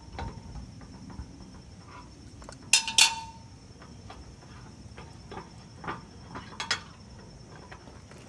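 Tools and hardware clinking against the steel log clamp as a nut is tightened on its threaded rod with a ratchet wrench: two sharp metal clinks close together about three seconds in, with a short ring, and a few lighter clinks later.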